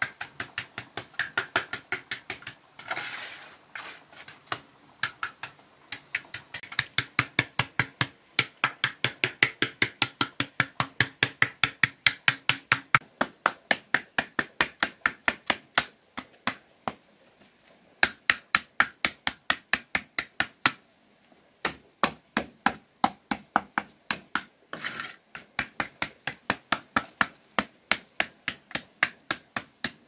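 Rapid, regular knocking strikes, about four a second, in long runs broken by short pauses, like a hand tool being struck over and over.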